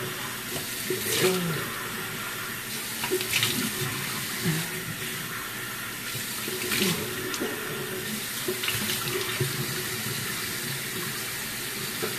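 Tap running into a bathroom sink while a face is rinsed with cupped hands, with splashes every second or two as water is thrown onto the face.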